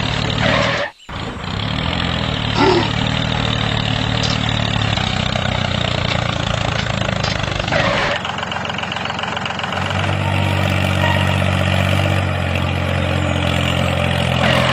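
An engine or motor running steadily with a low hum. It cuts out briefly about a second in and changes character partway through.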